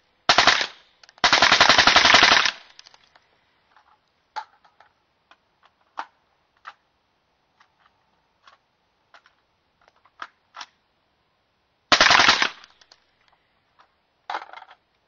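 Full-auto fire from a .223 AR-pattern rifle with a 14.5-inch barrel, suppressed by an AAC 7.62 SD suppressor: a short burst, then a longer burst of about a second, and after a long pause another short burst and a brief one near the end. Faint scattered clicks in between.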